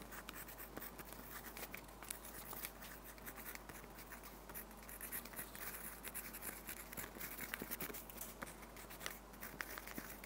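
Faint scratching of a pen writing on paper, with many small light clicks, over a steady low hum.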